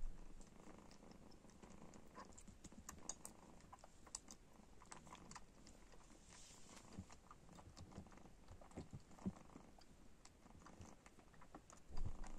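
Faint, irregular wet smacking clicks of a six-week-old Bengal kitten suckling at a bottle nipple, with a soft low bump near the end.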